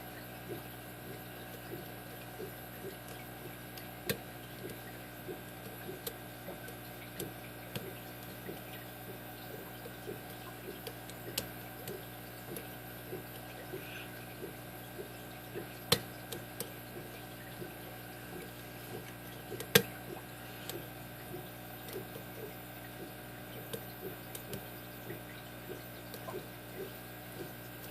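Small, irregular clicks and ticks of a lock pick and tension wrench working the pin stack of a five-pin brass padlock, with two sharper clicks around the middle, over a steady low hum.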